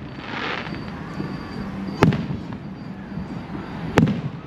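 Fireworks exploding: two sharp bangs about two seconds apart, with a brief hiss about half a second in.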